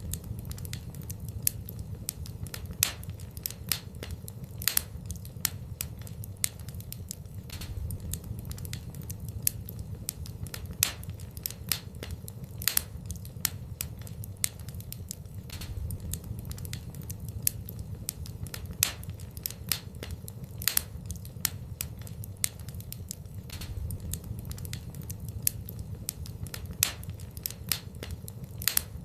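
Wood fire burning in a fireplace: irregular crackles and sharp pops of the burning wood, with a louder pop every couple of seconds, over a low steady rumble.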